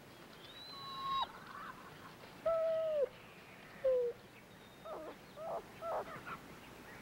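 A puppy whining: three high whines, each dropping off at the end, then a quick run of shorter whimpers.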